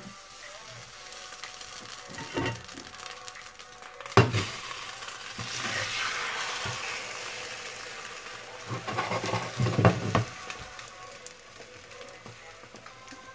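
A potato omelette sizzling in oil in a frying pan, the hiss swelling about 5 s in as the flipped omelette is slid back from a metal lid into the hot pan. A sharp metal knock just after 4 s and a run of clattering around 9 to 10 s from the lid and pan knocking together.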